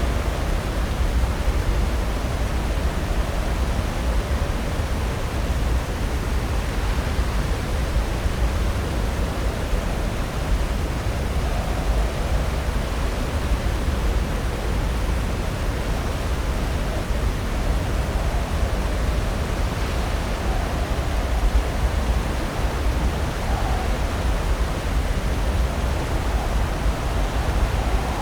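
Pacific Ocean surf breaking on the shore, heard as a steady, unbroken rush of wave noise with a heavy low rumble.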